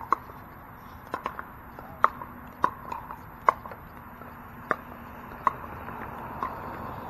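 Pickleball rally: about nine sharp, hollow pocks of a plastic pickleball struck back and forth by paddles, coming every half second to a second.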